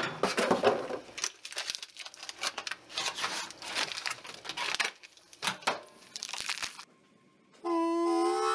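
Clear plastic vacuum-sealed bag crinkling and rustling in irregular bursts as a spool of PLA 3D-printer filament is pulled out of it. The crinkling stops near the end, and background guitar music begins.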